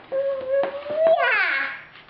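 A 14-month-old toddler vocalizing: one long held 'aah' that creeps up in pitch, then slides down near the end, with a few short clicks along the way.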